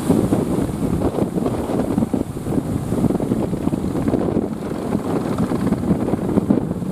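Strong wind buffeting the microphone, a steady low blustering noise with no let-up.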